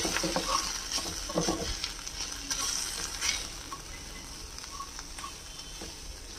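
Wooden spatula stirring and scraping through onions and freshly added ground spices frying in oil in a non-stick kadai, over a steady sizzle. The stirring is loudest for about the first three seconds, then settles into a quieter sizzle.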